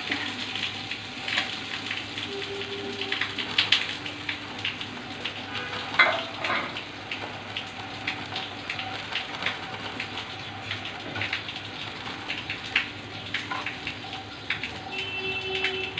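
Spice masala with tomato and a little water sizzling and crackling in a kadai over a gas flame while a metal spatula stirs and scrapes it: the paste being cooked down (kashano). A sharper knock stands out about six seconds in.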